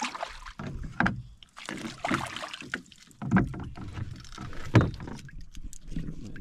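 A knife chopping fish bait on a wooden board aboard an outrigger boat: a few dull, deep knocks spaced irregularly, the loudest about five seconds in, with a soft hiss between them.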